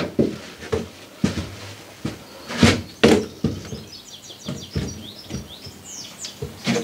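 Irregular knocks and thuds of handling and moving about inside the hollow steel shell of a narrowboat under fit-out. In the middle a small bird sings a quick run of high chirps.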